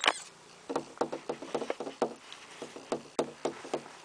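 A cat pawing and scratching at a door to be let in: an irregular run of light taps and knocks, several a second.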